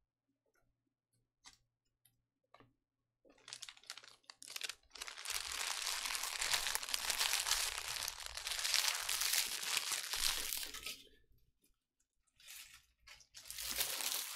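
Trading card pack wrapper being torn open and crinkled. A few light clicks come first, then about seven seconds of continuous tearing and crinkling, then shorter crinkles near the end.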